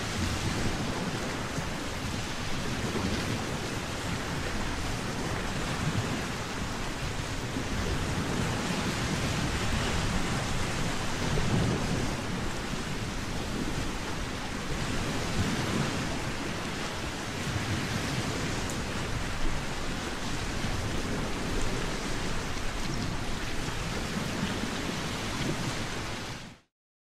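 Wind blowing: a steady rushing noise with low rumbling gusts, cutting off suddenly near the end.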